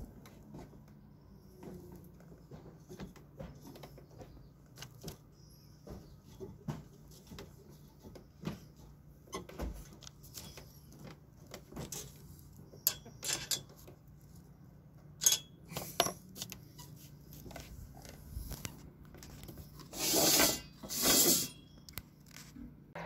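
Small scattered clicks and taps of hands handling an eye bolt and a black steel fence-rail tube. Two louder, short noisy bursts come near the end.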